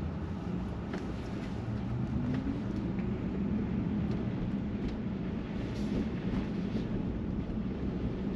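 Steady road and tyre noise inside an electric car's cabin while it drives, with a faint rising whine about two seconds in.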